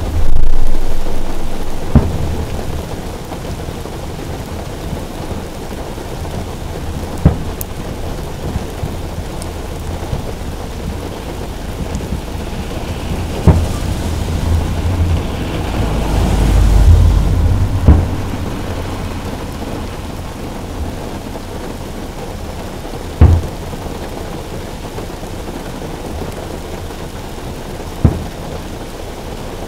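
Aerial firework shells bursting in sharp booms, about seven spread a few seconds apart, over steady rain falling on a car roof. A longer low rumble swells and fades in the middle.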